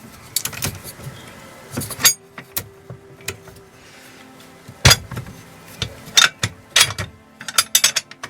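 Metal parts of a hydraulic trolley jack clinking and knocking together as they are handled and fitted during reassembly: a string of sharp clicks and clanks, some briefly ringing, the loudest knock about five seconds in.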